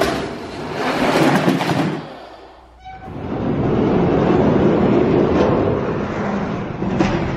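Die-cast monster truck toys rolling down an orange plastic racing track: a steady rolling rumble that dies away about two seconds in and comes back a second later, with one sharp click near the end.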